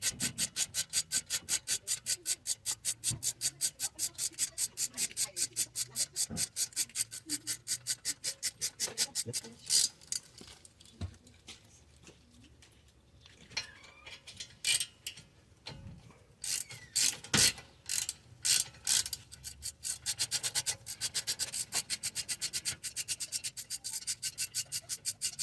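Ratchet wrench with a 7 mm Allen bit clicking rapidly and evenly as it unscrews a brake caliper guide bolt. The clicking stops about a third of the way in for a stretch of scattered knocks and clicks, then starts again near the end.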